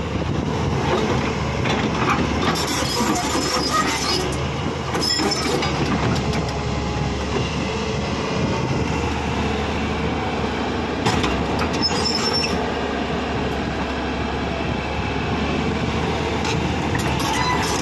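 Crawler excavator's engine running while its steel tracks clank and squeal, with sharp metal squeals a few seconds in, about five seconds in, and again around eleven to twelve seconds in.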